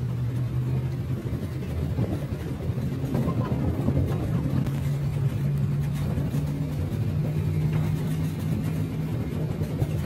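Engine of a shuttle vehicle running steadily, its pitch rising slightly about three seconds in.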